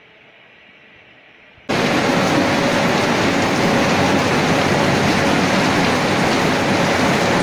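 Faint hiss, then about a second and a half in a sudden cut to loud, steady machinery noise from a cashew nut processing line, with nuts travelling along a mesh conveyor.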